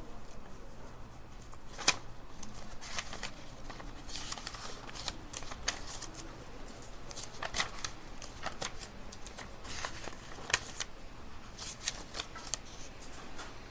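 Library ambience: scattered small clicks and soft rustles, as of paper and objects being handled, over a low steady room hum. Two sharper clicks stand out, about two seconds in and about ten and a half seconds in.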